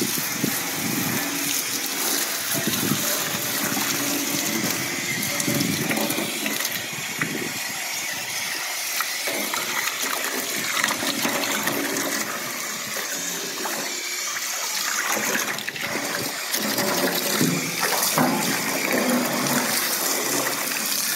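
Water from a garden hose pouring steadily and splashing into a shallow pool of water in an old enamelled bathtub as the tub is rinsed out.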